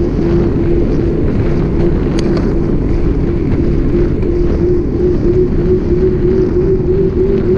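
Wind rushing over the microphone of a camera riding on a moving bicycle, with a steady droning hum from the ride along paved road.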